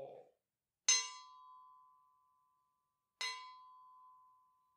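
Buddhist bowl bell (rin) struck twice, a little over two seconds apart. Each strike rings on as a clear, steady tone that slowly fades. It is sounded between sections of the chanting in the sutra service.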